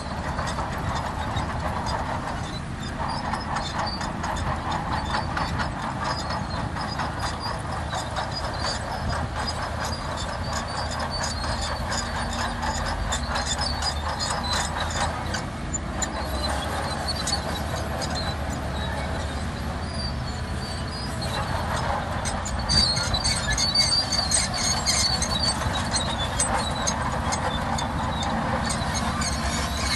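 Shantui DH17C2 crawler bulldozer at work: its diesel engine running steadily under rapid clanking and high squealing from the steel tracks. The squeal is loudest about three quarters of the way through.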